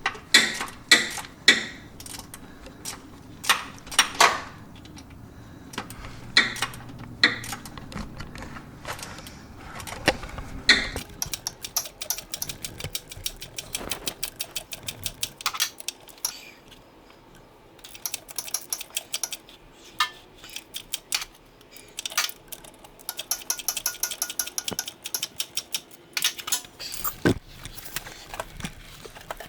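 Hand socket ratchet clicking in quick runs as a starter mount bolt is worked loose, with scattered metal clinks and knocks of the tools against the bolt and bracket.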